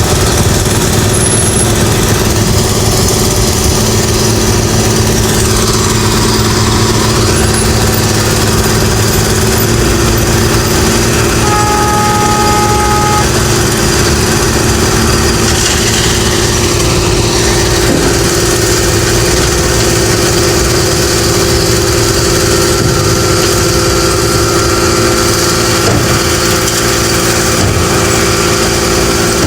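Engine of road construction machinery running steadily at a constant pitch, with one short two-tone beep lasting about a second and a half partway through.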